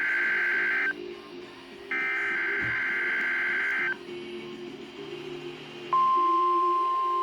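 NOAA weather radio sounding the Emergency Alert System SAME header: two screechy two-second bursts of digital data about a second apart. About six seconds in, the steady 1050 Hz warning alarm tone begins, signalling a warning-alarm activation for the required weekly test.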